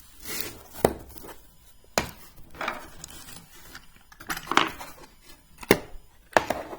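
Small machinist's tools and their cases being handled: a few sharp clicks and knocks, about four, as cases are opened, closed and set down, with rustling and scraping in between.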